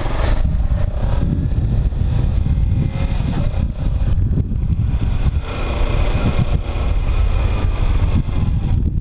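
Motorcycle riding along: steady engine drone under heavy wind rush and buffeting on the microphone.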